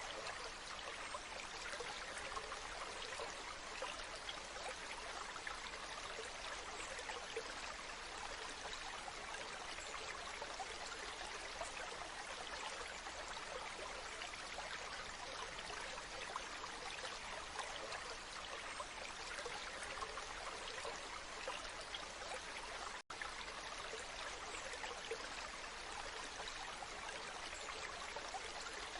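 Waterfall: a steady rush of falling, splashing water, with a split-second dropout near the end.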